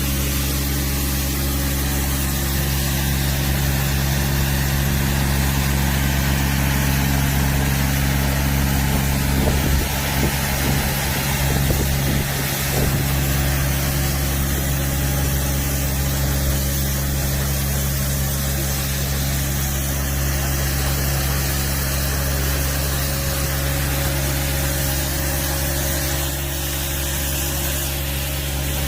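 Engine of a compact multipurpose loader running steadily at constant speed, its pitch unchanging, with a brief faint rattle near the middle.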